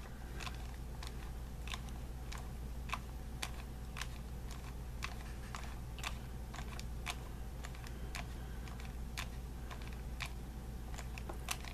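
Walking mechanism of a 9-inch vintage walker doll clicking as its legs are swung back and forth by hand: a string of faint, irregular clicks, about two or three a second.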